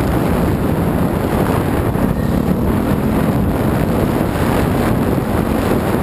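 Dirt bike engine running while riding a trail, steady and heavily muffled by wind buffeting on the microphone.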